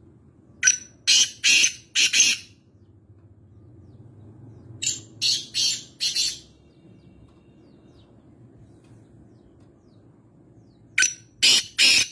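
Black francolin calling: three loud bouts of about four quick notes each, every five seconds or so, each bout lasting about a second and a half.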